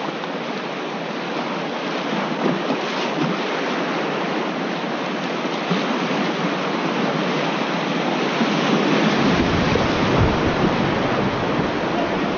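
Fast river current rushing and churning around a kayak running a riffle, the river high and strong after rain. About nine seconds in, a low rumble joins the rush as the boat reaches rougher water.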